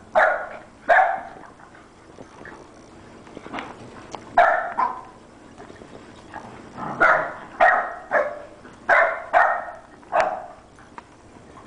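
Puppies barking during rough play: about ten short, sharp play barks, two near the start, two a little before halfway, then a quick run of about six in the second half.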